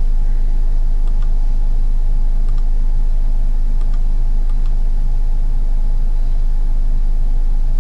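Loud steady low electrical hum with a few evenly spaced overtones, typical of mains hum picked up by the recording setup, with a few faint clicks.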